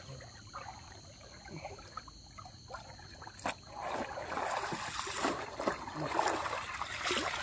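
Water sloshing and splashing around a person wading through shallow water with a hand net, quiet at first and growing louder from about halfway through. A single sharp click a little before that.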